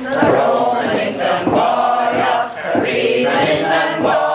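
Group singing a Gaelic milling song in unison, with wet woollen cloth thumped on the table in a steady rhythm as it is fulled by hand.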